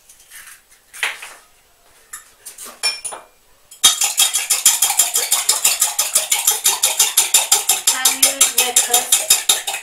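Eggs being beaten by hand in a jug, the utensil clinking against the side in a fast, even rhythm of about six or seven strokes a second. It starts about four seconds in, after a few scattered taps and clicks.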